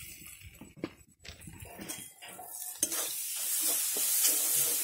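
Metal spatula scraping and stirring a thick spice paste in a steel kadai, with a clink about a second in; from about three seconds in the oil sizzles steadily under the stirring. The masala is fully fried down, with the oil separating from it.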